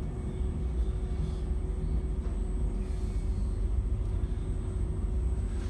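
Steady low rumble of a small inclined slope car running up its rail, heard from inside the cabin, with a faint steady hum over it.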